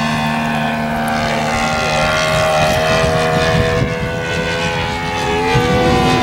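Great Planes Seawind radio-controlled model seaplane's engine and propeller droning steadily in flight, its pitch rising and falling slightly near the end.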